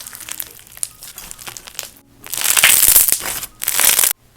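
Slime being squished and stretched by hand, crackling: a quick run of small clicks and pops at first, then much louder dense crackling after a break about two seconds in.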